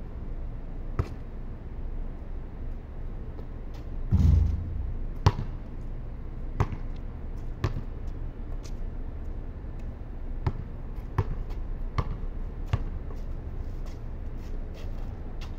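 A basketball bouncing on a concrete court as it is dribbled, sharp single bounces at uneven intervals of about a second. A louder, longer thump about four seconds in.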